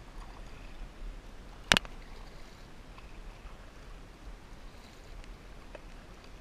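Kayak paddle strokes dipping and splashing in river water, with a low steady rumble underneath. One sharp, loud knock comes a little under two seconds in.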